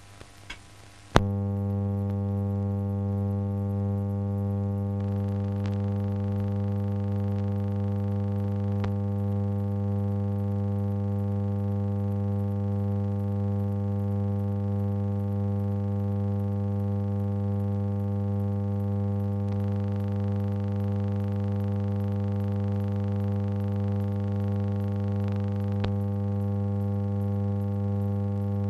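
Steady electrical mains hum with a buzzy stack of even overtones, starting with a click about a second in. A few faint ticks sound over it.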